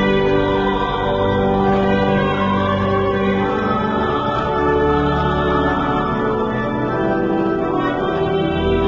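Slow church music of long held organ chords with voices singing, the chords changing every second or two.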